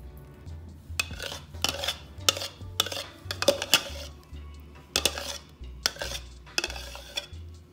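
A spoon scrapes and knocks against a mixer-grinder jar and a glass baking dish as thick blended mango custard is emptied out. It makes a string of sharp clinks and knocks, about one or two a second.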